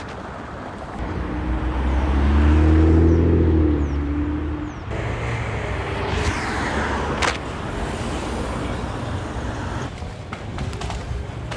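Street traffic: a motor vehicle's engine hums loudly for a few seconds, swelling and fading, then stops abruptly about five seconds in, leaving steadier, quieter traffic noise with a single sharp knock a couple of seconds later.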